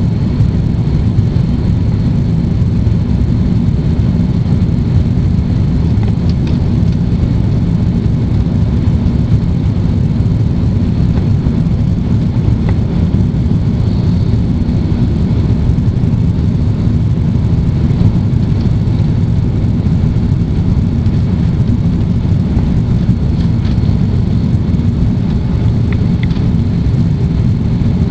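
Airbus A330 airliner heard from inside the cabin during landing: a loud, steady, low rumble of engine and airflow noise that holds even throughout.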